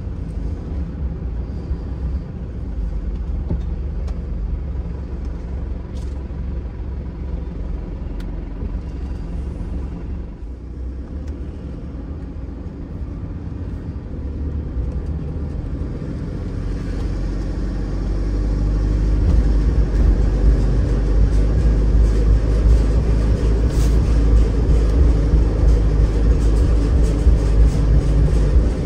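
A vehicle engine's steady low rumble, getting louder about two-thirds of the way through.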